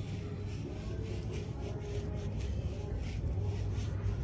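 Hands scrubbing a wet dog's coat in repeated rubbing strokes, about two or three a second, over a steady low hum.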